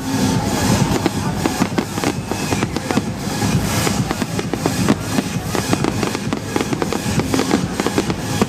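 Fireworks display: a dense stream of crackling and repeated bangs from bursting shells, with music playing underneath.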